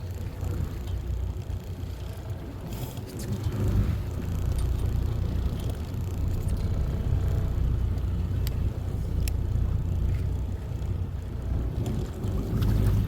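Fishing boat's engine running with a steady low rumble, with wind and water noise over it. Two sharp clicks come a little over halfway through.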